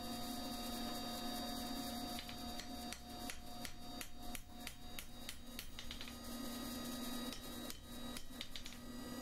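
Hand hammer striking a hot square steel bar on the anvil in a run of quick, light blows, about three a second, starting about two seconds in, squaring up the bar and keeping the forged skull head in line. A steady hum sounds underneath.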